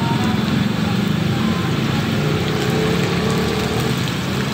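Vegetable rolls sizzling as they deep-fry in a wok of hot oil, over a steady low rumble.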